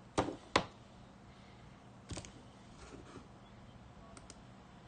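A handful of sharp clicks from a computer mouse being handled and clicked on a desk: two loud ones close together right at the start, another pair about two seconds in, and a few faint ticks later.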